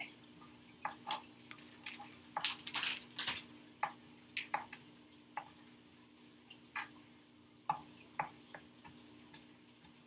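Kitchen knife chopping garlic and basil on a cutting board in sparse, irregular taps, over a steady low hum.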